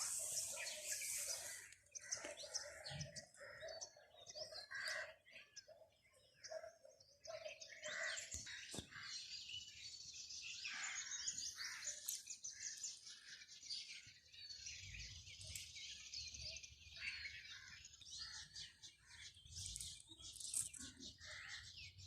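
Several birds chirping and calling, faint, with a dense run of high chirps through the middle and a steadier low note under the calls in the first several seconds.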